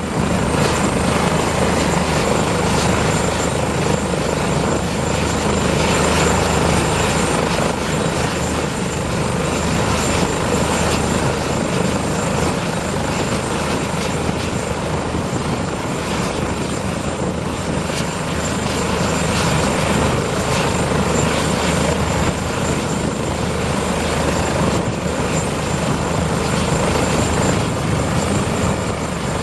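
Airbus H145M twin-turbine military helicopter running at close range: steady rotor noise with a thin, high, steady turbine whine over it.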